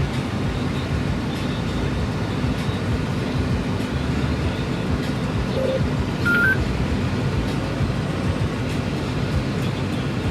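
Steady drone of a farm tractor's engine and drivetrain heard from inside the cab, with a short two-note electronic beep about six seconds in.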